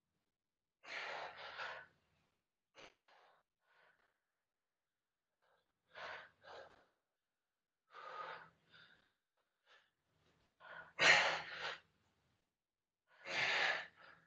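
A woman breathing hard through a set of push-ups done to near exhaustion: short, forceful exhalations every two to three seconds, the loudest about eleven seconds in.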